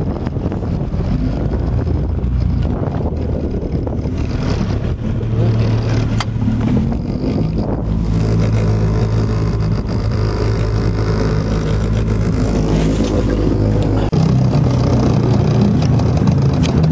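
Fishing boat's motor running steadily, with wind and water noise over it; the engine note shifts twice.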